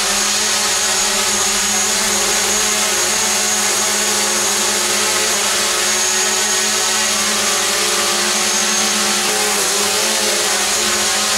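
Small DJI quadcopter drone hovering close by: its propellers buzz with a steady, high whine, the pitch wavering briefly near the end.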